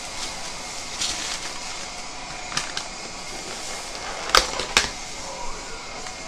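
Aluminium foil and plastic takeout packaging crinkling as it is handled. About four seconds in come two sharp plastic snaps, a little under half a second apart, as the clear lid is pulled off a round takeout container.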